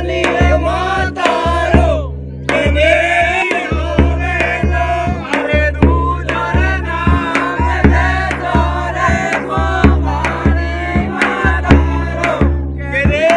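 Rajasthani Fagan folk song: singing over a regular beat of drum strokes and a steady low drone, with a short break about two seconds in.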